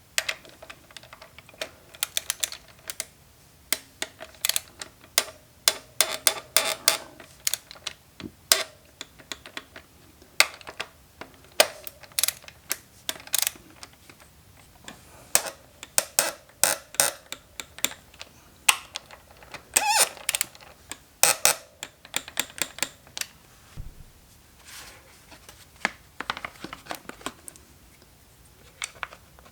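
Irregular sharp clicks and clacks of hard objects being handled and knocked together, sometimes in quick runs of several taps.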